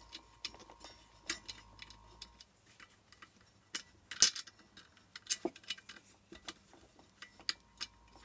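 Small, irregular metal clicks and clinks of nuts being spun by hand onto the threaded studs of a diesel heater's aluminium base plate, one sharper clink about four seconds in.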